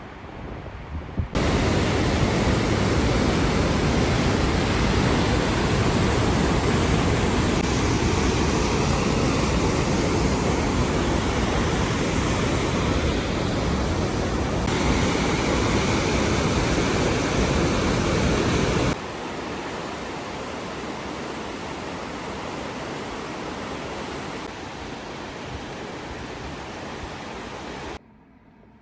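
Steady roar of a waterfall, a dense, even rush of falling water heard in several clips joined by hard cuts. It drops to a lower level about two-thirds of the way through.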